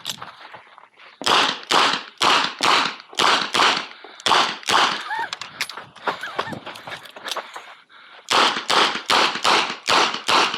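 Smith & Wesson 929 9mm revolver fired in quick strings of shots, about two a second. A run of shots is followed by a pause of about three seconds, then a second run.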